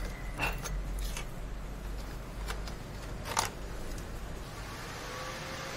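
A few light clicks and knocks of hands working inside a desktop PC case. About four and a half seconds in, the computer powers on and its cooling fans spin up into a steady whoosh.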